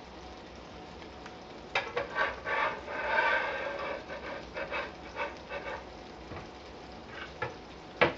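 Kitchen utensils clinking and scraping against cookware: a run of knocks and scrapes through the middle, then one sharp clack near the end.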